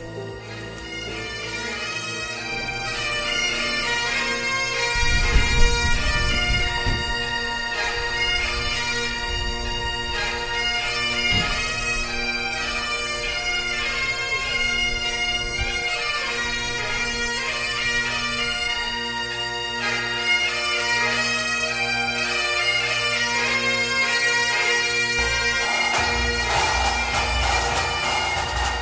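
Great Highland bagpipes playing a tune over their steady drones.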